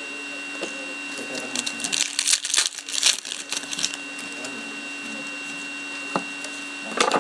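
Crackling of a foil trading-card pack wrapper being torn open and crinkled, for a few seconds in the first half, over a steady electrical hum.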